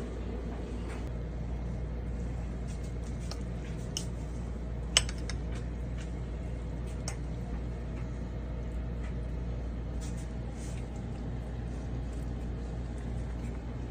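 Fork scraping and clinking on a plate of food in short, scattered clicks, one sharp clink about five seconds in, over a steady low hum.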